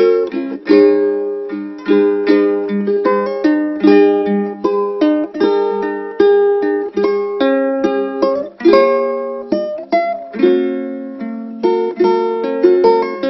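Solo ukulele played as a melody over chords, its strings plucked in quick, rhythmic succession with each note ringing briefly and fading.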